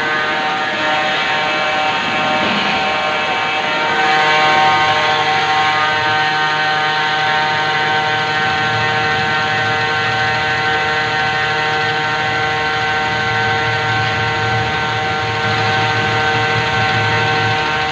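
CNC lathe running while turning a component: a steady machine whine made of several held tones over a noisy hiss. It swells briefly about four seconds in.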